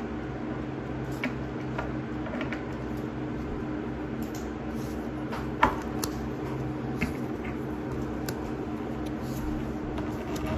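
Tarot cards being handled and turned over on a table: scattered light clicks and taps, the sharpest about five and a half seconds in, over a steady low hum.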